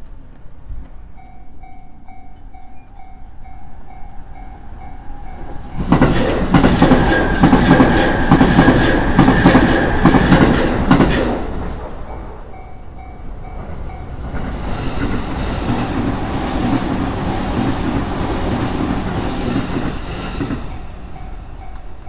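Japanese railway level-crossing warning bell dinging in a steady two-tone rhythm, then a train passing over the crossing with rapid wheel clicks, loud enough to drown out the bell. The bell comes back briefly, a second, quieter train passes, and the bell is dinging again near the end.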